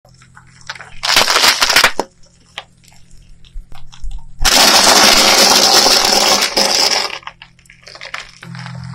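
Objects cracking and crunching as they are crushed: a short burst of crackling about a second in, scattered snaps, then a longer loud crunching stretch from about four and a half seconds to seven. A low steady hum comes up near the end.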